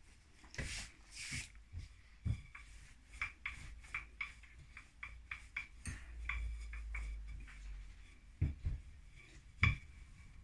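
Wooden rolling pin rolling out firm, chilled shortcrust tart dough on a floured counter: a low rumble as the pin rolls, with scattered light taps and knocks of the pin and hands, and a couple of brief rustles about a second in.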